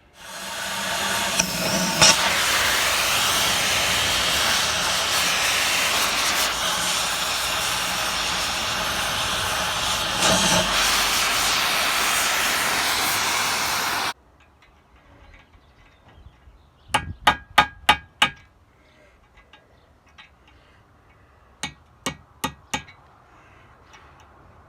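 Oxy-fuel cutting torch hissing steadily as it heats the remains of a seized bolt red and blows it out with a shot of oxygen. The hiss stops abruptly about halfway through, followed by two quick runs of sharp metallic clinks.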